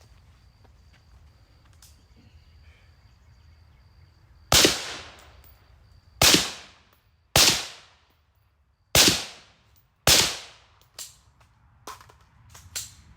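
Five gunshots fired in a deliberate string, one every one to two seconds, each with a short ringing echo, followed by a few much lighter clicks.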